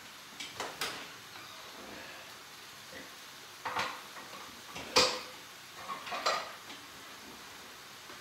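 Metal utensils knocking and clinking against a wok and pans during stir-frying, in a string of irregular sharp knocks with the loudest about five seconds in.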